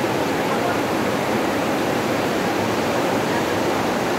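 A fast-flowing river rushing over rocks: a steady, unbroken rush of white water.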